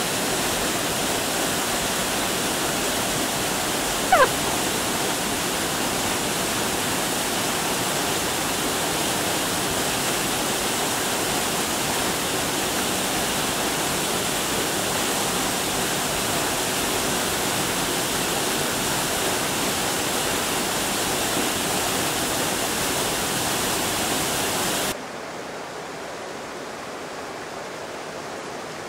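Waterfall pouring, a loud, steady rush of falling water. About four seconds in, a brief sound slides quickly down in pitch over it. Near the end the rush drops suddenly to the quieter sound of a rocky stream.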